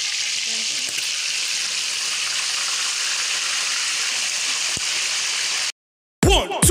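Boiled chicken pieces deep-frying in hot vegetable oil in a pan, a steady sizzle. It cuts off suddenly near the end, and electronic dance music begins.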